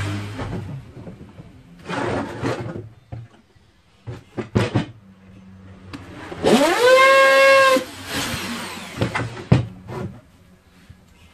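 Corded electric drill run in short bursts, drilling into a circular saw's metal base plate. It gives a brief burst about two seconds in and a few clicks. About halfway through, the motor spins up with a rising whine, runs steadily for about a second and stops, followed by two short blips.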